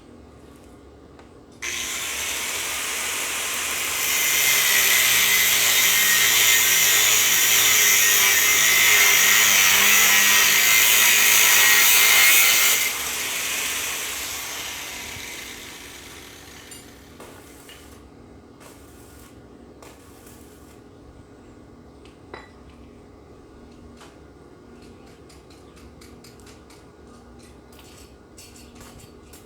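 Angle grinder grinding metal: it starts suddenly a couple of seconds in, bites harder and louder for about nine seconds, then is released and winds down over a few seconds. Scattered light metal taps and clicks follow.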